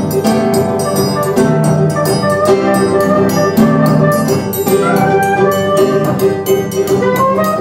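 Brazilian choro quartet playing a baião live: soprano saxophone carrying the melody over acoustic guitar and cavaquinho chords and a steady percussion beat, with a quick upward sax run about five seconds in.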